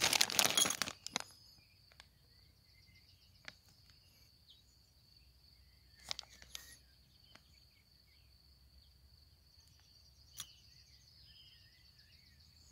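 Clear plastic bag of metal screws and gate fittings crinkling in the hand, loudest in the first second, with short rustles again a few times later. A faint steady high whine lies underneath.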